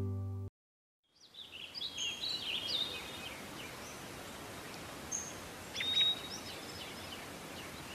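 Guitar music cuts off about half a second in. After a brief silence, birds chirp in quick, repeated calls over a steady outdoor background hiss, with a longer call about six seconds in.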